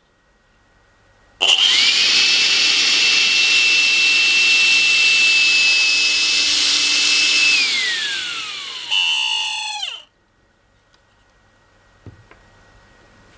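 Makita CL182FD cordless stick vacuum switched on: its motor whine rises quickly to a steady high pitch over a loud rush of air. After about six seconds the whine falls in pitch, and about ten seconds in it is switched off and winds down.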